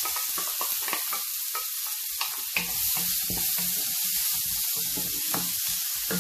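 Chopped onions sizzling in hot oil in a frying pan, stirred with a wooden spoon that knocks and scrapes against the pan.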